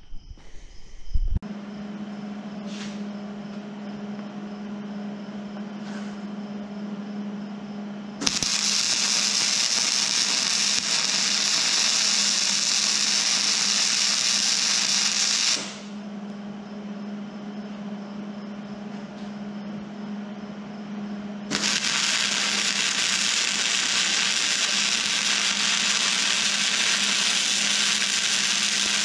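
Electric arc welding on the steel trailer's bumper mounts: the arc crackles and hisses steadily for about seven seconds, stops, then strikes again about 21 seconds in. A steady hum runs beneath throughout.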